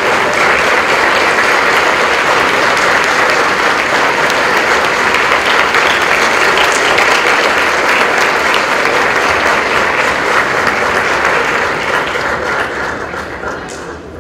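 Audience and cast applauding, a dense steady clapping that dies away over the last couple of seconds.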